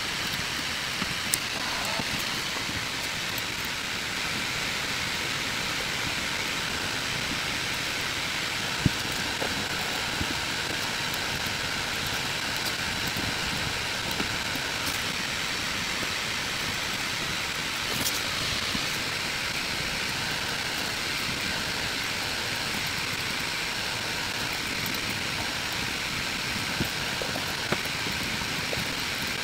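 Steady background noise, an even hiss with no pitch, broken by a few faint clicks.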